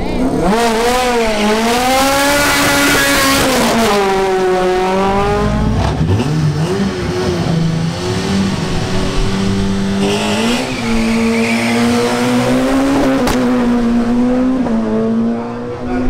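Racing car engines revved hard, the pitch swinging up and down over the first six seconds, then a steadier engine note with smaller rises in revs. A brief tyre squeal comes about ten seconds in.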